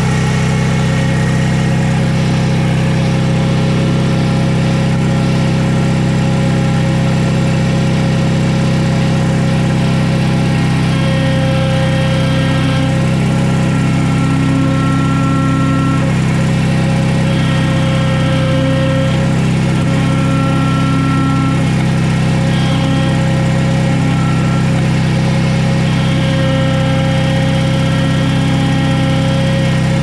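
Case 1816C skid steer's engine running steadily at idle: a loud, even hum, with a few higher tones that fade in and out.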